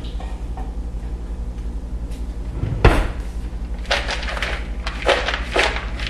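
Spoon and cooking pot being handled over kettle corn: a single knock about three seconds in, then a run of short scraping strokes, roughly two a second, over a steady low hum.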